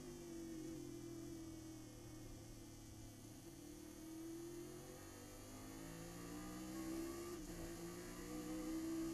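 Chevrolet Nova race car's engine heard from inside the cockpit. Its pitch sags while the car slows for a corner, then climbs steadily as it accelerates out, with a brief drop about seven and a half seconds in, like a gear change.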